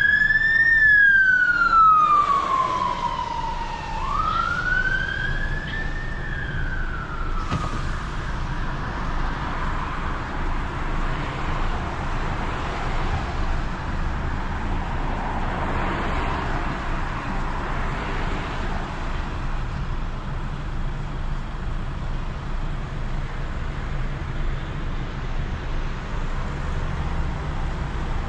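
An emergency-vehicle siren wailing, its pitch rising and falling slowly twice, stops about seven seconds in, near a single click. After it, the steady engine and road noise of a heavy recovery truck, heard inside its cab.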